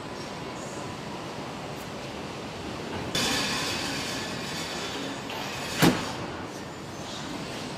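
Car assembly-line machinery noise: a steady mechanical din. A hiss starts suddenly about three seconds in and slowly fades, and a single sharp knock comes near six seconds.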